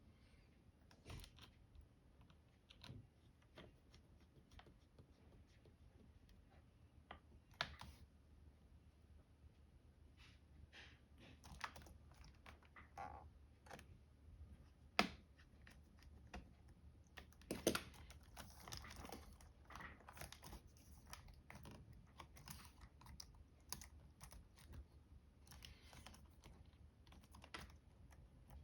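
Faint, sparse, irregular clicks and taps of small plastic laptop parts being handled on a Dell Latitude E7440 under repair, with a sharper click about halfway through and a cluster of clicks a little after.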